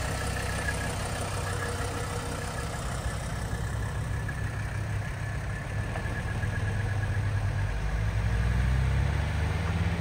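The 1983 Mercedes-Benz 300CD's 3.0-litre turbodiesel inline-five runs as the coupe pulls away at low speed. Its pitch rises slowly and it grows a little louder over the last few seconds as the car gathers speed.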